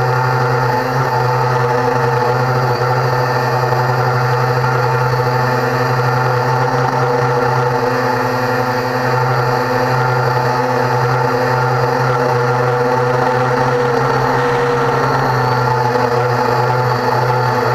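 Cheerson CX-20 quadcopter's four brushless motors and propellers running steadily in flight, heard close up from a camera mounted on the drone: a constant whine of several held tones over a low hum, with a slight shift in pitch near the end.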